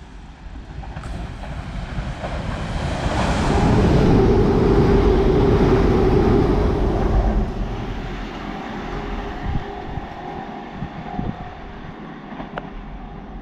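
A passenger train running through the station at speed. Its rumble builds over the first few seconds, is loudest about four to seven seconds in, then fades as it goes away, with a faint steady whine in the fade.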